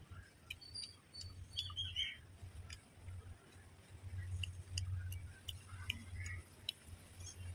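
Birds chirping on and off, with scattered short clicks from a man eating rice and fish by hand, over a low rumble that comes and goes.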